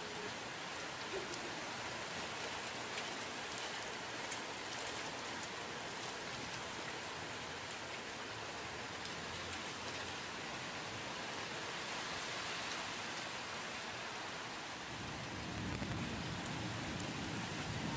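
Steady rain falling in a thunderstorm: an even hiss with the patter of drops. A low rumble of thunder builds near the end.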